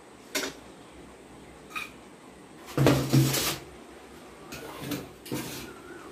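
Stainless steel bowls and plates clinking and knocking as they are handled and set down, a couple of them ringing briefly. The loudest is a scuffing thump about three seconds in, followed by a few softer knocks.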